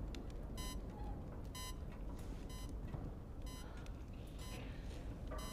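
Short electronic alert beeps from a control-room computer, repeating steadily about once a second, over a low steady rumble.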